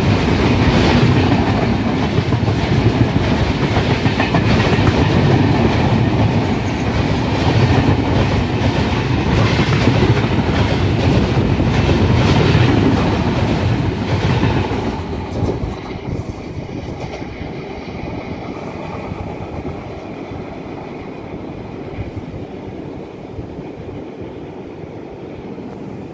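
Tejas Express LHB passenger coaches passing at close range on the adjacent track: a loud steady rumble of wheels on rail with a light rhythmic clack. It fades about fifteen seconds in as the last coach clears, leaving a quieter steady noise.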